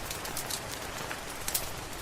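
Steady rain hiss with many short, sharp crackles and pops of a wood fire scattered through it.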